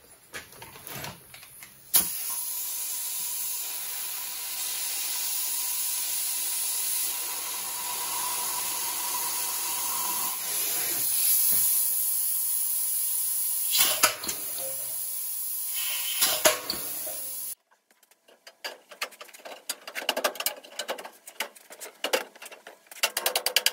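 Pneumatic hand tool running on shop air: a steady high hiss with a faint whine, broken briefly twice before it stops. Then scattered metal knocks and clanks as the sheet-metal radiator support is set onto the car's front end.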